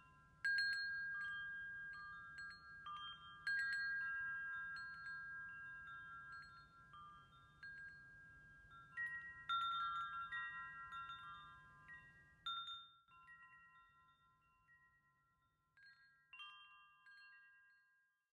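Wind chimes ringing: clusters of several bright metallic notes struck together every few seconds, each left to ring and fade, dying away near the end.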